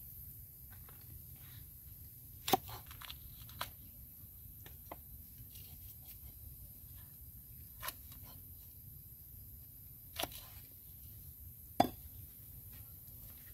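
A handful of short, sharp knocks and clicks, spaced a second or more apart, over a quiet steady background. The loudest come about two and a half seconds in and near the end.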